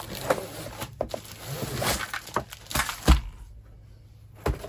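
Diamond painting kit packaging crinkling and rustling as it is handled and opened, with scattered clicks and a thump about three seconds in.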